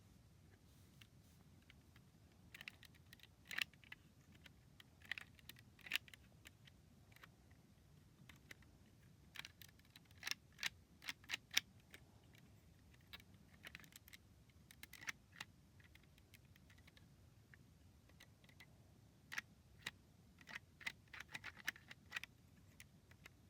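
Lego plastic pieces being handled: irregular, sharp plastic clicks and taps that come in clusters.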